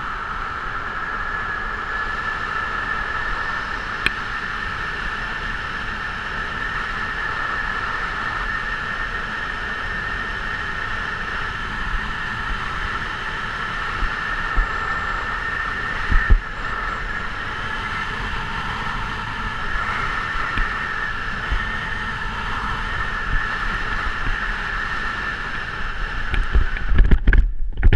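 Steady rushing wind noise with a high whistling hiss on a camera worn by a skydiver under an open parachute canopy in descent. Near the end it breaks into loud, irregular bumps and rustling as the jumper touches down on grass.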